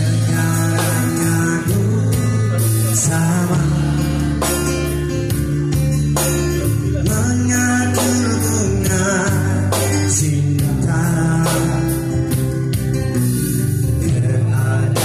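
Acoustic guitar strummed with a man singing, both amplified through a busker's PA speakers.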